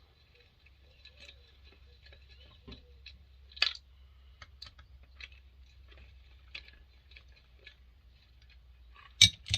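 Scattered small clicks and taps of hand tools and loose parts being handled while the top cover of a McCulloch 7-10 chainsaw is taken off. There is a sharper knock nearly four seconds in and the loudest clack near the end.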